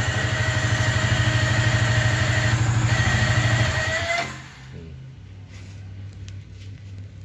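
Yamaha Vixion single-cylinder engine idling with a steady high-pitched whine over it, which the mechanic likens to a pump whining. About four seconds in the engine is switched off and the whine rises slightly as it stops, leaving a faint low hum and a few light ticks.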